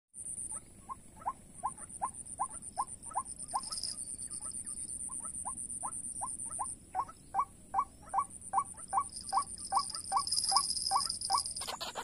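White-breasted waterhen calls, a rapid series of short rising notes at about three a second with a couple of brief breaks, of the kind played from an mp3 lure to draw the birds to a snare. A steady high-pitched buzz runs underneath.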